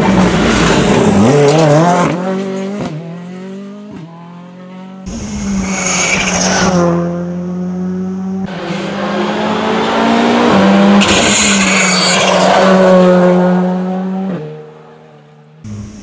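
Rally cars at full throttle on a tarmac stage, engines revving up and dropping through gear changes, in several short clips cut together. Twice, about five and eleven seconds in, a loud hissing rush rises as a car passes close.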